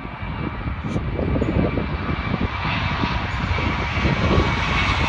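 Jet engines of a Ryanair Boeing 737-800 at takeoff thrust just after lift-off: a steady roar with a faint whine, growing louder as the airliner climbs past.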